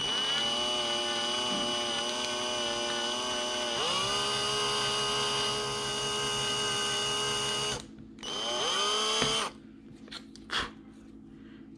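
Electric drill with a bit of about 1 mm boring a hole through a small circuit board: the motor whines up to speed, runs steadily, sags and picks up again about four seconds in, and stops near eight seconds. It then runs again for about a second and a half and stops, followed by a few small knocks.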